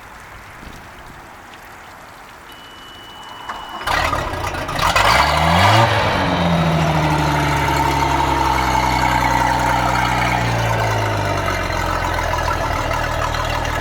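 Bryant boat's engine cranking and catching about four seconds in, rising briefly in pitch, then settling into a steady idle whose pitch slowly falls. A thin steady tone sounds for about a second just before it starts.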